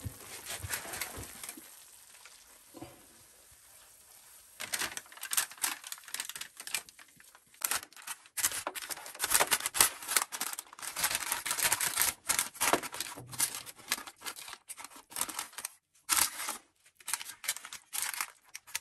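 Baking paper crinkling and rustling as a silicone spatula scrapes and spreads thick walnut halwa into a paper-lined dish, in quick irregular rustles from about five seconds in.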